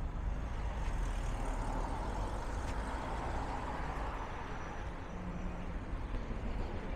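City street traffic: a steady rumble of engines and tyres, with one vehicle passing more loudly about one to three seconds in.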